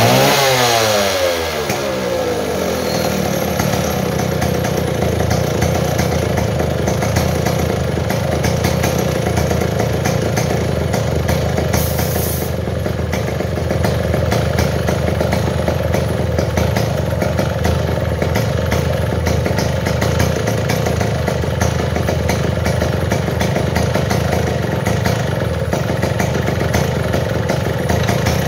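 Stihl 070 two-stroke chainsaw engine coming down from a rev to idle over the first two seconds, then idling steadily.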